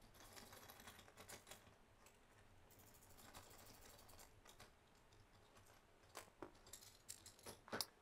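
Faint, scattered small metallic clicks and ticks from a Phillips screwdriver and spanner doing up M5 screws on a starting solenoid and its metal battery bracket. A few clicks come early, and more come in the last two seconds.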